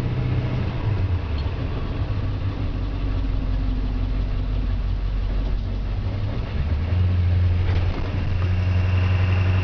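International 4700 medium duty truck's diesel engine running under way, heard from inside the cab; its note drops about a second in and picks up again near seven seconds.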